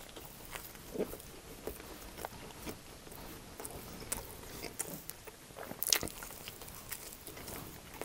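Close-miked chewing of a mouthful of steak-and-cheese quesadilla: soft, irregular wet mouth clicks and smacks, with one louder click about six seconds in.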